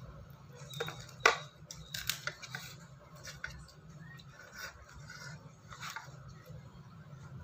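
A metal spoon scraping and clicking against a plate as a corndog is cut into pieces, in scattered short strokes, the sharpest about a second in.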